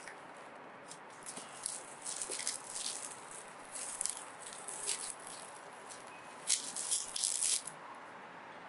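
Plastic wrapping around a coconut crinkling as the coconut is handled and lifted out of a cardboard box: irregular crackling in several spells, the loudest about three quarters of the way in.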